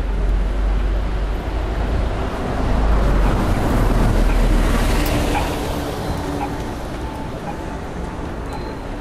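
City bus driving past, its engine and tyre noise building to a peak about three to five seconds in and then fading.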